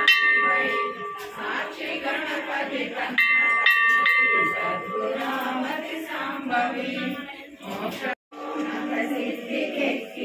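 Temple bell rung by hand in quick strokes near the start and again about three seconds in, over group devotional chanting. The sound drops out briefly about eight seconds in, then the chanting goes on over a steady low drone.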